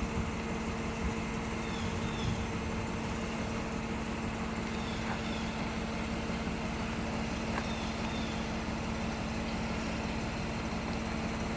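Car engine idling with a steady, unchanging hum.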